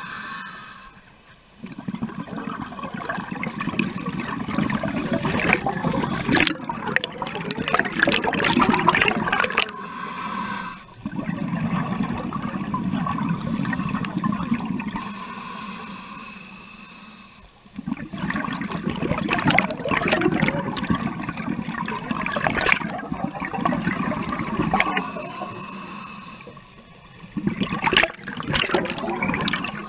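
Underwater breathing through a scuba regulator: long rushes of exhaled bubbles gurgling past the mask, each starting suddenly after a brief pause for the inhale, about four breaths in all.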